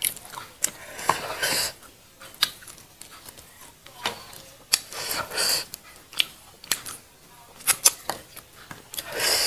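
Close-miked eating: a person chewing with a mouthful, with many sharp mouth clicks and smacks and three longer crunchy, hissing bursts near the start, in the middle and at the end.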